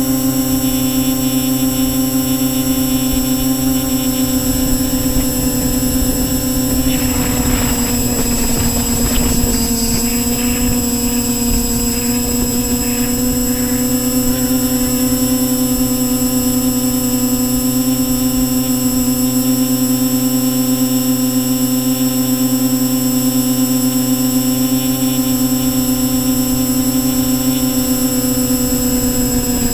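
Quadcopter's electric motors and propellers running steadily in flight, heard close up from the onboard camera as a constant whine at one pitch. A rush of wind noise comes in for a few seconds about a quarter of the way through, while the pitch dips slightly.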